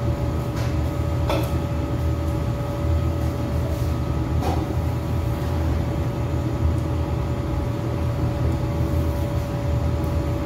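Floor-standing air conditioner running: a steady low hum with a steady higher tone over it, and a few faint clicks.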